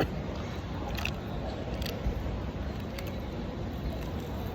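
Soft eating sounds, a few faint clicks and squishes of chewing and handling food, over the steady background noise of a shopping mall.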